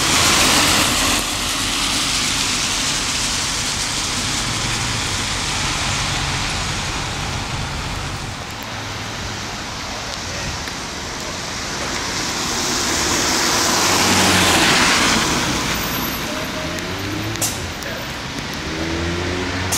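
Road traffic hissing past on wet pavement over a low steady engine rumble, with one vehicle swelling and fading about 12 to 16 seconds in.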